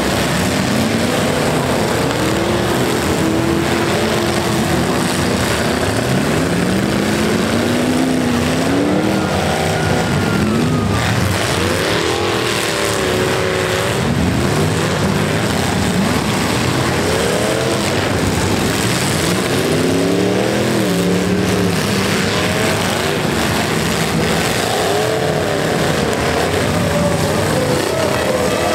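Several demolition-derby truck engines running and revving hard at once, their pitches rising and falling and overlapping without a break.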